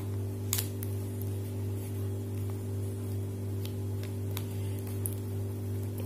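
A steady low hum, with a few faint scattered ticks as a rolled paper strip and a plastic glue bottle are handled.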